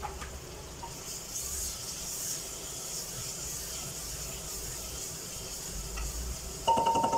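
Chopped tomatoes sizzling in hot oil in an aluminium pressure cooker while a wooden spatula stirs them. A short, loud pitched sound comes near the end.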